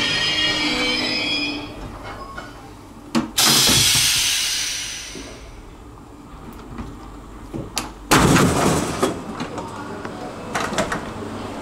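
Train stopping: the wheel squeal dies away in the first two seconds, then a click and a loud hiss of air about three seconds in and a loud bang with a rush of noise about eight seconds in, typical of a train's pneumatic doors working.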